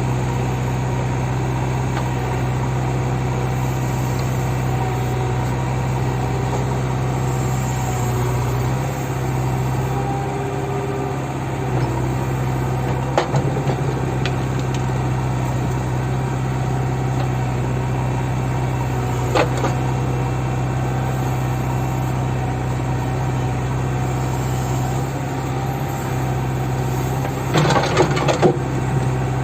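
JCB backhoe loader's diesel engine running steadily at a constant speed. A few sharp knocks cut through it, with a short cluster of them near the end.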